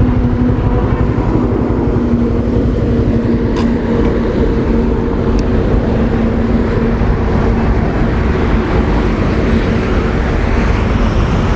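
TVS Victor motorcycle's single-cylinder engine running steadily on the move, with heavy wind rumble on the camera microphone.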